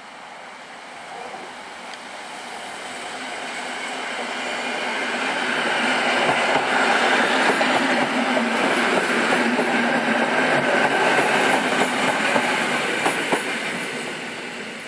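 A PKP class EN57 electric multiple unit passing by on the track: its running sound grows louder as it approaches, is loudest for several seconds as the cars go past, then fades as it pulls away. A few sharp clicks come near the end.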